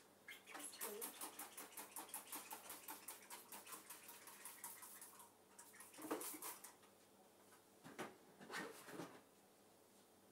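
Damp cloth rubbing a window pane and frame in quick back-and-forth wiping strokes, about five a second, faint. The strokes die away about halfway through, and a few louder rubs follow near the end.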